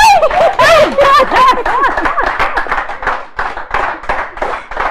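A woman's high, wavering emotional outburst of voice, overcome at being shown a painted icon, then steady hand clapping from about two seconds in.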